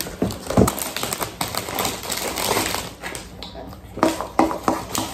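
Irregular clicks and knocks of things being handled on a kitchen counter, such as a metal mixing bowl and packaging being picked up and set down.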